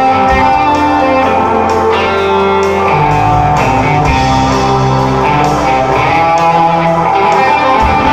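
Rock band playing live: electric guitars strumming over a steady drum beat, heard from among the audience.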